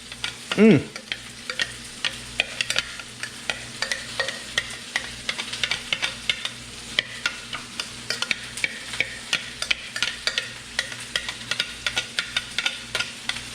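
Bacon-wrapped hot dogs frying with chopped onions and bell peppers, sizzling steadily with frequent sharp crackles of spitting fat. A faint low hum runs underneath.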